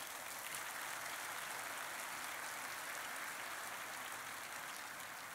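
Large seated audience applauding, steady clapping that tapers off near the end.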